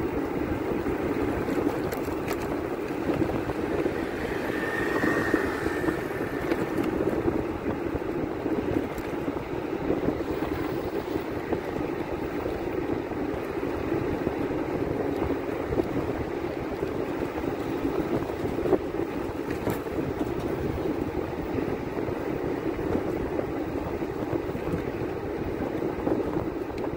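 Steady running noise of a vehicle moving along a road: engine and road noise mixed with rushing wind, constant throughout.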